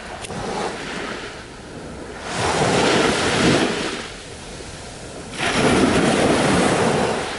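Small waves washing up on a sandy beach, two surges of surf about three seconds apart over a steady background wash.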